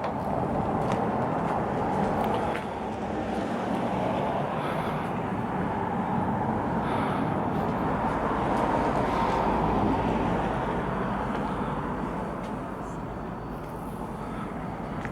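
Steady road traffic noise from vehicles on the street, swelling slightly as one passes near the middle.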